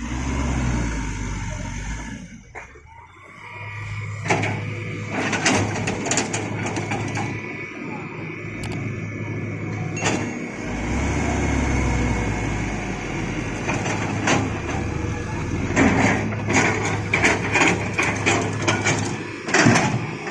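Hitachi excavator's diesel engine running under load, its rumble swelling twice, with repeated sharp knocks and clatter of rock, heaviest near the end.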